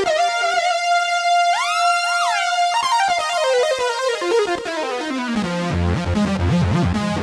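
Korg Kross 2 synthesizer playing a patch: a held high note with short notes gliding upward into it about two seconds in, then a descending run of notes that ends in a low, pulsing bass line near the end.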